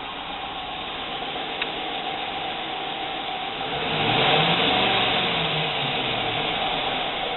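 Jeep Cherokee engine idling steadily with a misfire on cylinder 5, despite new plugs, tested coils and cleaned injectors. About four seconds in, the sound swells louder for a couple of seconds, with a low tone that rises and falls in pitch.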